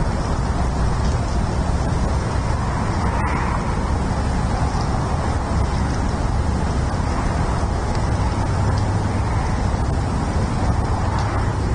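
Steady low outdoor rumble picked up by the nest camera's microphone, like wind or distant traffic, swelling gently about three seconds in and again near the end.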